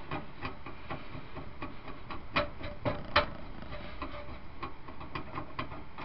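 Screws being fitted into the motherboard standoffs of a PC case: irregular small metallic clicks and taps, the sharpest about two and a half to three seconds in.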